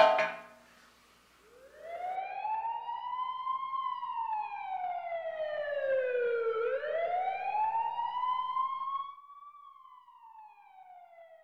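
A sudden, brief loud burst right at the start, then a wailing siren whose pitch sweeps slowly up and down twice over several seconds. The siren fades away during its last slow fall near the end.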